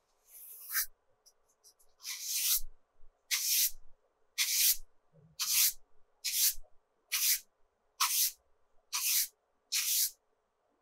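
A large soft-bristled brush sweeping eraser crumbs off sketchbook paper: about ten brisk swishes, roughly one a second, with short pauses between strokes.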